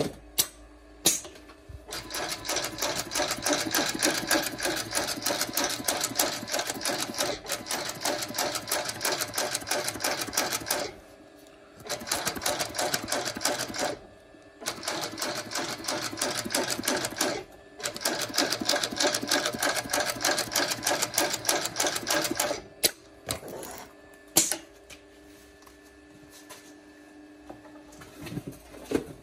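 Famas 224 TK shoe-sole sewing machine stitching round a shoe's sole in four fast runs of rapid, even stitches, with short stops between them. Near the end the stitching stops, a few sharp clicks follow, and a steady low hum continues.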